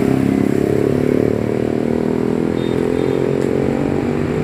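Heavy diesel engine of a passing Agra Mas coach on a Mercedes-Benz chassis running steadily, its pitch easing slightly downward, amid road traffic.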